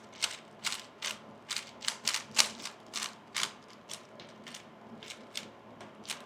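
3x3 speedcube being turned fast by hand during a solve: a quick, uneven run of plastic clicks and clacks, about two or three a second, a few louder than the rest.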